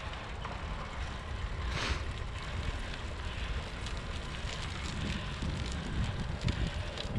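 Wind buffeting a moving microphone: a steady low rumble with a fainter airy hiss over it, the sound of filming while travelling along with a road cyclist.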